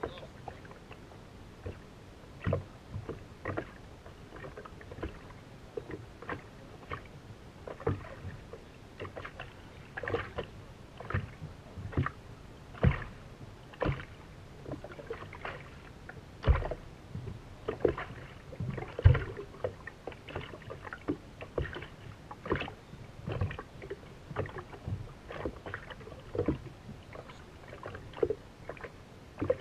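Small waves slapping against the hull of a race boat sitting slow or drifting in a chop: irregular knocks and slaps, one or two a second, with a few louder thumps.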